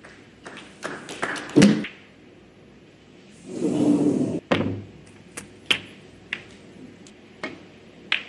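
Snooker balls and cue tip clicking sharply, a run of clicks with one heavier knock about one and a half seconds in. A brief muffled swell of noise comes around four seconds in, then single clicks every second or so.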